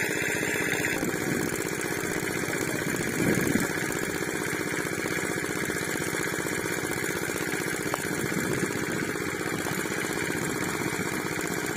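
A small engine running steadily at an even speed, its drone low and unbroken.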